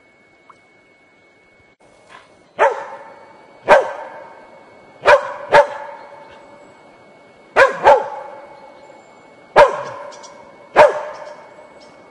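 A dog barking: about eight loud barks at uneven spacing, some in quick pairs, starting a couple of seconds in. Each bark trails off in an echo.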